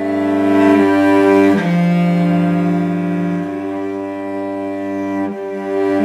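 Background music of slow, sustained bowed strings with a low cello or bass line, the chords changing every second or two.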